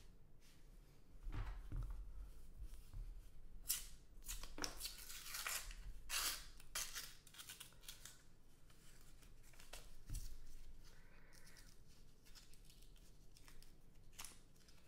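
Paper wrapper of a roll of half dollars being torn open, a series of short tearing and crinkling rustles.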